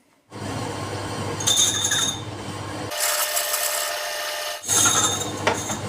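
Small metal lathe running and cutting metal: a steady motor hum with a scraping hiss where the tool bites, as a part is turned down in diameter. About three seconds in the sound switches abruptly to a higher whine without the hum for a second and a half, then the lathe hum and cutting return.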